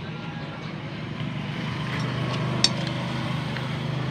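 A steady low engine drone, a little louder after about a second, with one sharp click about two and a half seconds in.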